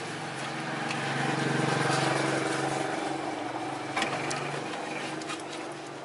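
A vehicle engine running steadily, a little louder about two seconds in, with a single metallic click about four seconds in.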